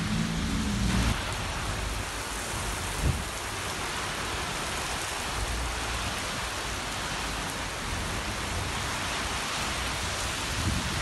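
Steady rain falling on wet streets, with a low rumble in the first second and a single short knock about three seconds in.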